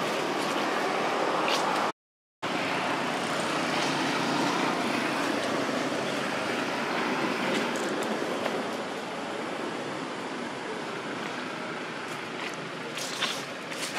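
Steady rushing background noise with no clear pitch, cut off by a sudden half-second of total silence about two seconds in, with a few sharp clicks near the end.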